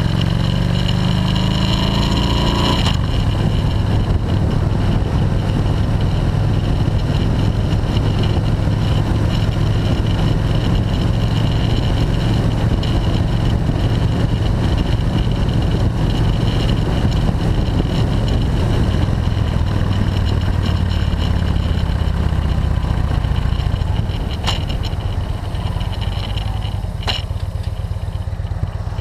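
Touring motorcycle's air-cooled engine accelerating, its pitch rising until a break about three seconds in, then running at a steady cruise under road and wind noise. Near the end it eases off and gets quieter, with two short clicks.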